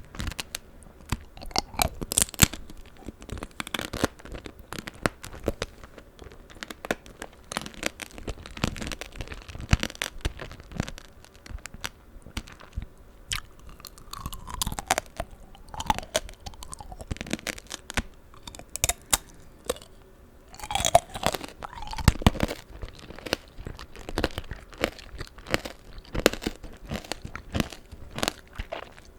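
Close-miked crunching and chewing of tanghulu, the hard sugar-candy shell on strawberries and green grapes cracking between the teeth in many sharp cracks, mixed with wetter chewing of the juicy fruit.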